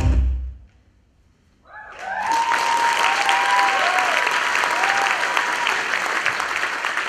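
The dance music stops about half a second in, and after a second of silence an audience breaks into applause with a few high whoops of cheering.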